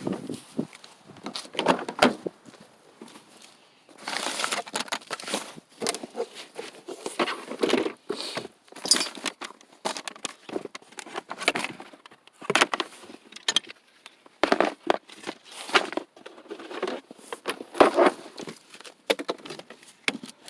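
Hands rummaging through a pile of loose car parts, the pieces clinking, rattling and rustling in irregular bursts, as someone searches for a small door-handle trim cover.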